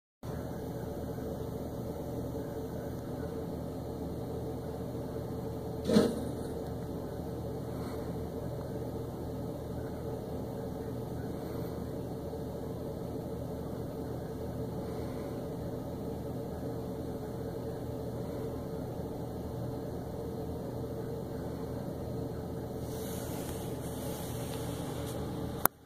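Flatbed tow truck's engine idling with a steady hum, with one sharp knock about six seconds in.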